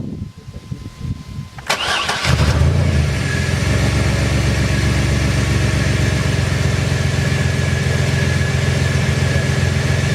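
Old Ford van's engine cranking for about half a second, catching almost at once about two seconds in, and then idling steadily, now that the faulty positive battery terminal has been repaired.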